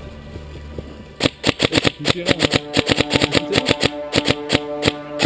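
Systema PTW airsoft electric rifle firing a fast, uneven string of sharp clacking shots, about six or seven a second, starting about a second in, over background music.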